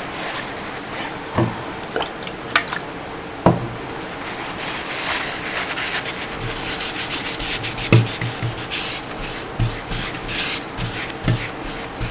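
Paper towel wetted with rubbing alcohol scrubbed back and forth over a graphics card heatsink, wiping off old thermal paste with a steady scratchy rubbing that turns into quick repeated strokes in the second half. A few light knocks come through, one about a second and a half in, one near three and a half seconds and one near eight seconds.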